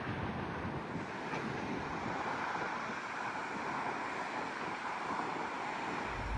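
Steady rushing outdoor noise that swells slightly in the middle, with no distinct events.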